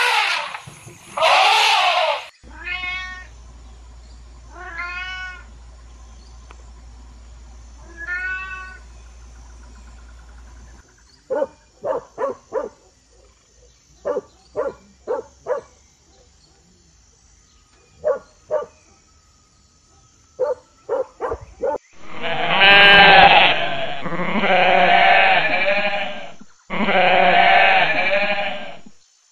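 A series of separate animal calls: first a few loud cries and three rising-and-falling calls, then a run of short clipped calls. For the last seven seconds or so a herd of goats bleats loudly in several long bleats, the loudest sound here.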